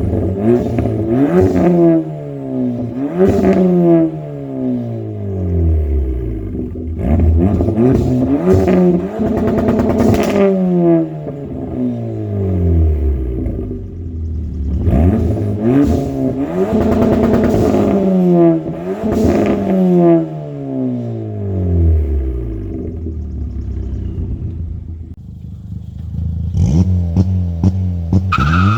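2016 Ford Fiesta ST's turbocharged 1.6-litre four-cylinder revving through an aftermarket cat-back exhaust. The revs are blipped up again and again in clusters, each one falling back toward idle over a second or two, with a steadier idle stretch before one last blip near the end.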